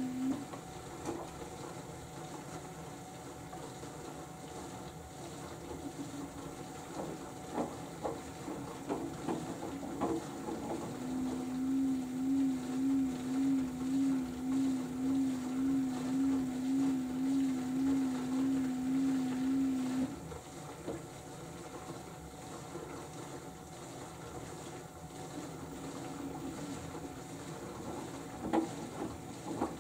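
LG AiDD Steam direct-drive washing machine in its final spin stage. The drum motor hums, swelling and fading about twice a second, for several seconds in the middle. Before and after that it falls quiet apart from scattered soft knocks from the drum.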